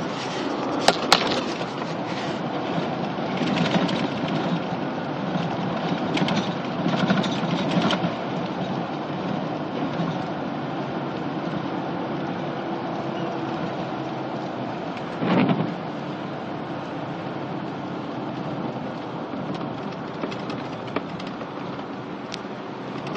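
Rain on a moving car, heard from inside the cabin: a steady hiss of rain and wet tyres on the road, with two sharp clicks about a second in and a short thud about fifteen seconds in.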